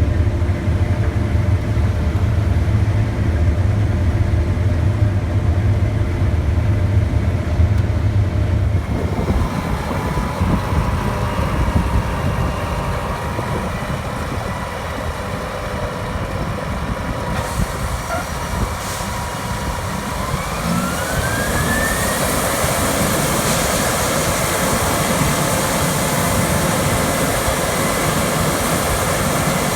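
Case IH 8230 combine harvester running at work in corn, a heavy steady engine rumble. About nine seconds in the sound changes to a broader rushing noise with a thin steady whine, which rises in pitch about two-thirds of the way through.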